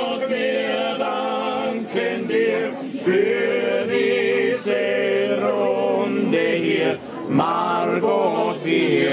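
Several men singing together unaccompanied, holding long notes, a drinking song sung with schnapps glasses raised.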